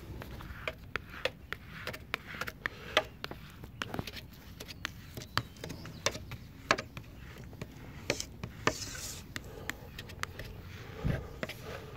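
Plastic hard-card squeegee rubbing and scraping over window tint film on the rear glass, with many irregular sharp ticks and clicks over a low rumble.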